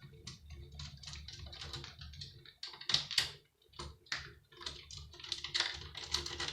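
Irregular clicks and light knocks of small metal and plastic parts being handled while a Sky satellite TV box is taken apart, with a couple of sharper clicks about three and four seconds in.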